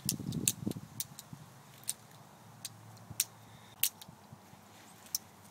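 Miniature handmade Filipino balisong (butterfly knife) being flipped: sharp metallic clicks of the handles clacking together, a quick flurry in the first second, then single clicks every half second to a second, the last about five seconds in.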